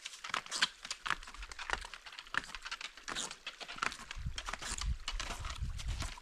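Snowshoe footsteps crunching and scraping on crusty snow and rock, an irregular run of crackling steps.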